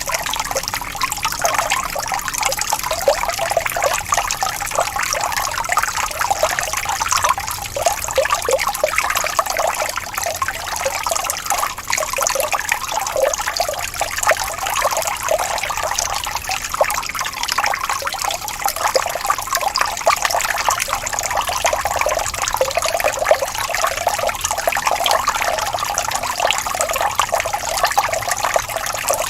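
Small waterfall: falling water splashing and trickling steadily, a dense patter of small splashes with little low rumble.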